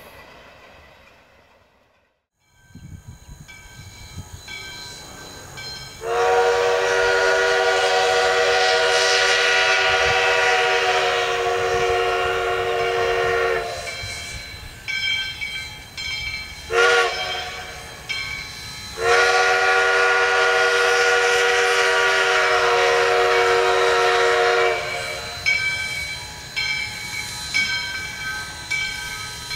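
Chime steam whistle of restored ex-Florida East Coast 4-6-2 Pacific steam locomotive #148 as the train approaches. It blows a long blast of several notes at once, a short toot, then another long blast.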